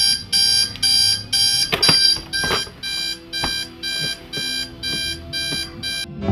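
Electronic alarm clock beeping in a fast, even series of high-pitched beeps, about two a second, cutting off about six seconds in. A few knocks sound among the beeps, the loudest near two seconds in.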